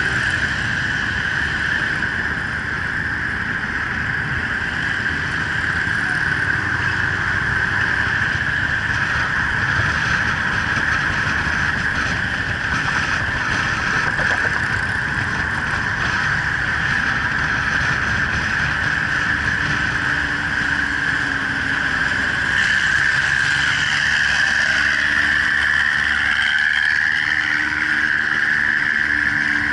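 Motorcycle riding in city traffic, heard from a camera on the bike: steady wind rush with the engine running underneath. The engine note comes up a little past the middle.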